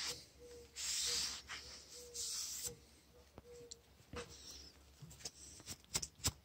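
Rag rubbing along the steel blade of an M95 bayonet in back-and-forth strokes, each a short scratchy hiss, two full strokes in the first three seconds. After that come a few light clicks and taps as the blade is handled.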